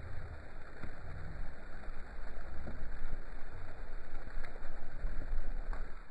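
Thunderstorm: a low, uneven rumble that swells and fades over a steady hiss.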